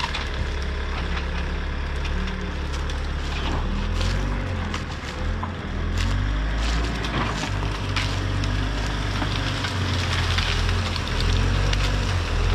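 Telehandler diesel engine running under load, its revs rising and falling as the boom and grab work, with branches and brush cracking and snapping as the grab tears out overgrown hedgerow scrub.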